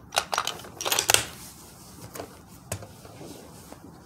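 Clicks and metallic clatter of a Ruger American .308 bolt-action rifle being loaded: a cartridge single-fed into the action and the bolt worked, with the busiest clatter in the first second and a few lighter clicks after.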